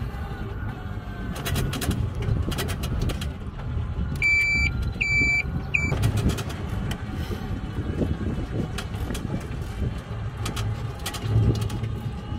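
Low road and tyre rumble from riding in a small electric car, with the body clattering and knocking over the uneven road. About four seconds in, three short electronic beeps sound a little under a second apart.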